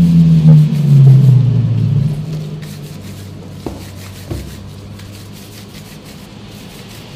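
A loud, low droning rumble that fades away over the first three seconds, then two sharp snips about half a second apart from kitchen scissors cutting noodle dough.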